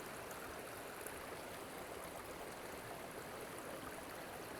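Small mountain creek flowing over rocks: a steady, even rush of running water.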